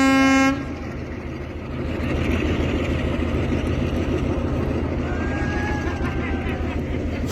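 A train horn that stops about half a second in, then a diesel locomotive's engine running steadily with a low, even drone.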